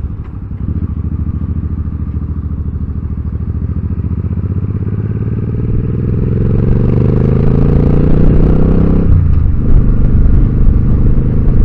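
Motorcycle engine accelerating, its pitch rising steadily for several seconds, then dropping sharply about nine seconds in as it shifts up a gear and pulls on.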